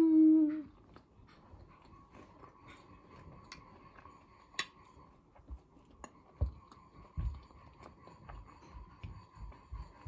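A woman chewing a mouthful of cutlet stuffed with potato, cheese and herbs, with soft irregular wet clicks and smacks, opening with a short hummed 'mmm' of pleasure.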